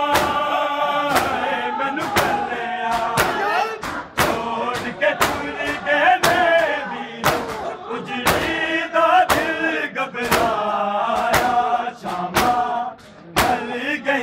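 Men's voices chanting a Punjabi noha, crossed by the sharp slaps of hands striking bare chests in matam, about two slaps a second in a steady beat.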